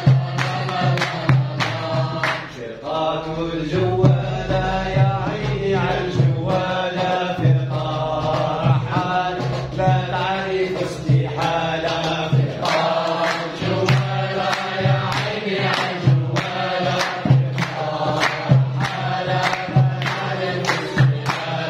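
Group of men singing an Arabic scout song together, clapping hands to a steady beat about twice a second.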